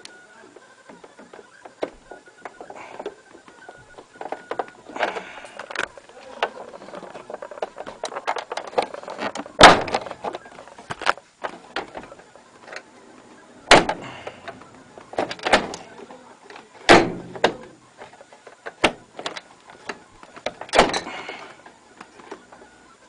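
Hotpoint tumble dryer door and its loose, nearly slid-off handle being handled and pushed back into place: irregular clicks, knocks and scraping, with sharp knocks about ten, fourteen and seventeen seconds in.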